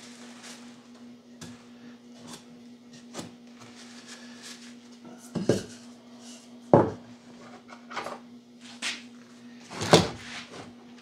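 Wooden beehive frame parts being handled and set into a wooden assembly jig: a few sharp wooden knocks and clatters, the loudest about seven and ten seconds in, over a steady low hum.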